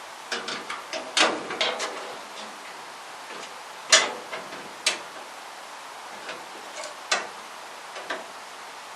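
Scattered sharp clicks and knocks from hand work on the classic Mini's front panel, as it is bolted and clamped to the subframe. A quick cluster comes in the first two seconds, then single louder knocks about four, five and seven seconds in.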